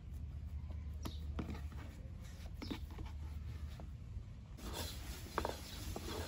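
Hands working soft bread dough on a floured wooden board: light taps, pats and rubbing. About four and a half seconds in, a long thin rolling pin starts rolling out dough on the board, with denser rubbing and small knocks over a low steady hum.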